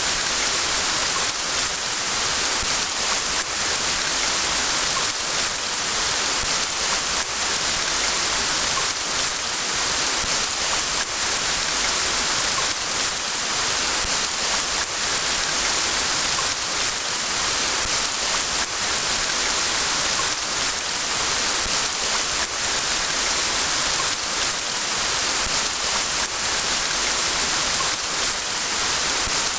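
Steady rain falling: a dense, even hiss of drops with countless small ticks.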